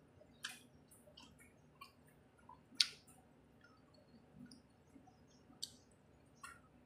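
Faint eating sounds of someone chewing a mouthful of rice and vegetables eaten by hand: scattered short wet clicks and smacks, the sharpest about three seconds in.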